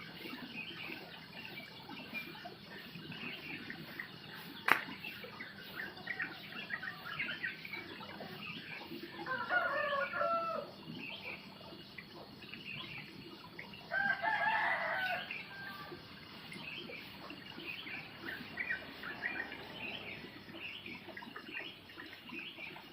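A rooster crowing twice, each crow about a second and a half long, about nine and fourteen seconds in, over steady chirping of small birds. There is a single sharp click about five seconds in.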